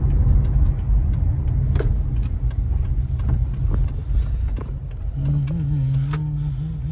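Inside a moving car: the engine and tyres give a steady low rumble as the car rolls slowly over a rough dirt lot, with scattered small clicks and knocks. About five seconds in, a low wavering hum joins the rumble.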